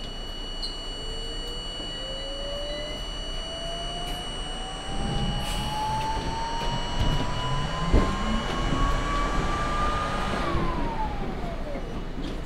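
R32 subway train running, with a whine that climbs slowly in pitch for about nine seconds and then drops away quickly near the end, over a steady high tone and rumbling wheel noise. A sharp clunk comes about eight seconds in.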